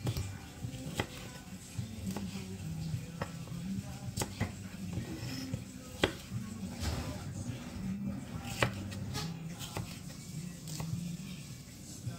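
Kitchen knife slicing a green bell pepper on a wooden cutting board: irregular taps and knocks of the blade against the board, over low background music.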